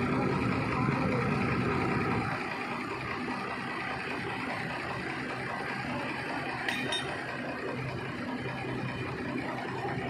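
Kobelco 220 excavator's diesel engine running under load as the machine crawls onto a flatbed trailer, easing off about two seconds in and then running steadily. A short metallic clink about seven seconds in.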